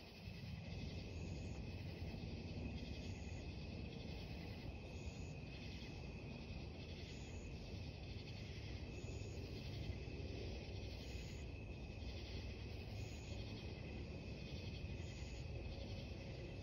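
Night chorus of crickets chirping steadily in a regular pulse about once a second, over a faint low rumble.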